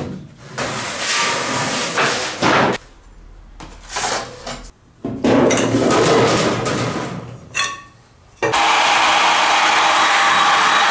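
Thin sheet metal being flexed and handled at a workbench: wobbling, rattling and clanks, in short stretches that break off abruptly. About two-thirds of the way through, an electric heat gun starts and blows steadily.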